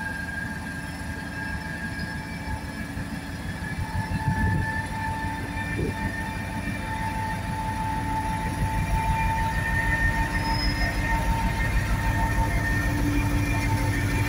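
Colas Rail Class 56 diesel locomotive 56094 approaching and passing slowly at the head of a freight train, its Ruston-Paxman V16 diesel engine rumbling and growing louder as it nears. A steady high whine sits over the engine for much of the time.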